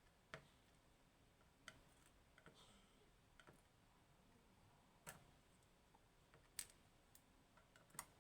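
Faint, scattered clicks of small metal lock pins and tools being handled, about eight sharp ticks spread unevenly, as the pin stacks of a Clavis 10-pin lock are taken out one by one.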